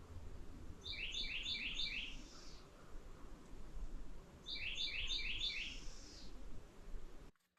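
A bird calling twice, each time a quick run of four down-slurred notes, over a low background rumble.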